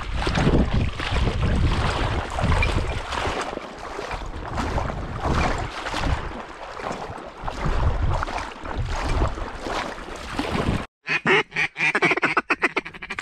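Ducks quacking over wind buffeting the microphone. About eleven seconds in the sound cuts off, and a quick run of sharp, rapid quacks follows.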